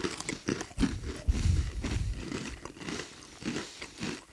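Someone chewing crunchy soy-sauce-glazed rice crackers: an irregular run of crisp crunches and bites, with a few heavier thuds in the middle.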